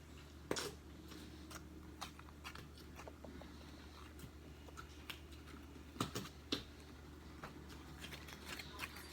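Slime being squeezed and handled, giving scattered soft sticky clicks and pops, with a few louder ones about half a second in and around six seconds.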